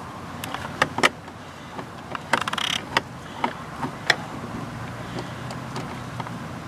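Scattered sharp clicks and taps as a screw and plastic door-panel parts are handled and fitted, with a short rustle about two and a half seconds in. A steady low hum sits under the second half.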